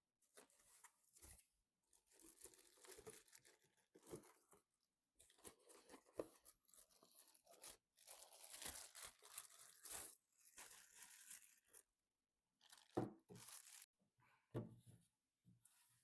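Plastic packaging or film being torn and crinkled in irregular spells, with two sharp knocks near the end.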